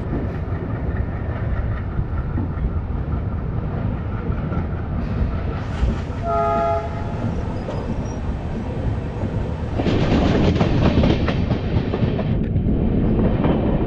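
Running noise of a moving Indian express train heard at an open coach door. About six seconds in its horn sounds once, briefly, and from about ten seconds the running noise grows louder.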